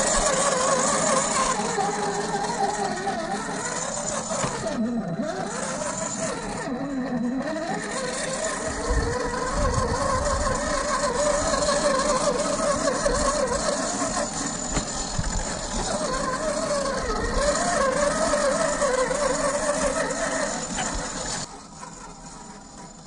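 Xtra Speed D110 1/10-scale RC crawler's 550 brushed electric motor and geared drivetrain whining as it crawls over rock, the pitch wavering up and down with the throttle. It gets much quieter near the end.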